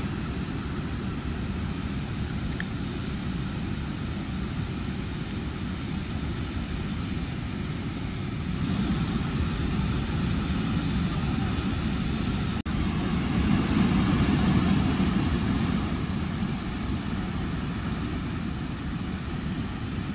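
Steady rushing roar of river water spilling over a low dam, a deep rumble with an even hiss above it, briefly broken about two-thirds through.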